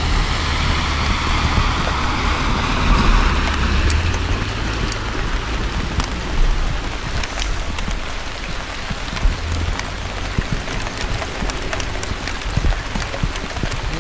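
Light rain pattering, with many scattered, irregular sharp ticks of drops landing close by. A passing truck can be heard in the first few seconds and fades away, over a steady low rumble.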